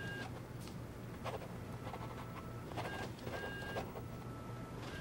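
An office printer running, a whirring whine that alternates between two pitches about every second, with a click at each switch, over a low steady hum.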